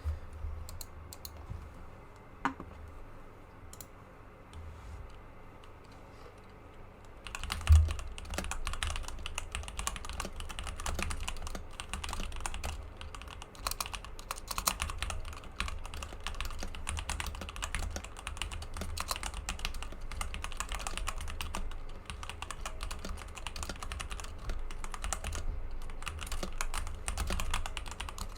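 KBD67 Lite mechanical keyboard being typed on: a few scattered keystrokes at first, then fast, continuous typing from about seven seconds in, which opens with a dull thump.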